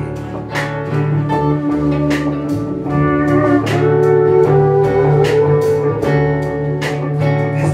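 Live band playing an instrumental passage without singing: held lead notes that slide in pitch, typical of pedal steel guitar, over electric guitar, upright bass and drums keeping a steady beat of about two strikes a second.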